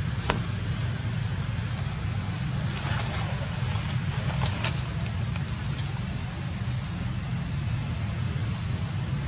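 Steady low outdoor rumble with a hiss over it, broken by a few sharp clicks and rustles, with faint high chirps every second or so.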